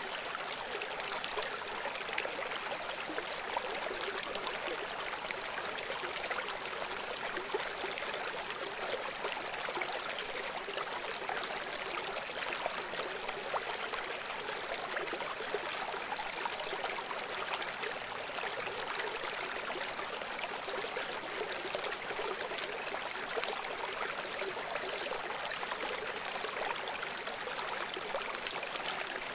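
Running water flowing steadily, like a stream, an even rushing noise with almost no deep sound and no change throughout.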